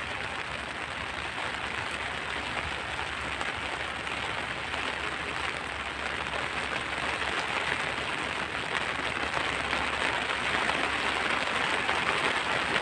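Steady rain pattering on an umbrella held over the camera, slowly growing heavier and louder.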